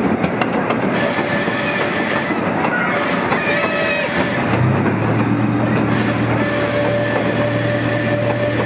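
A park ride-on train rolling along its track, heard from the passenger cars: a steady rumble of wheels on rails with some clickety-clack. A low steady hum joins about halfway through.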